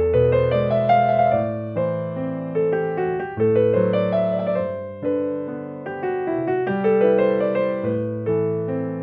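Background music on a keyboard: a slow, gentle melody of held notes, each struck and then fading.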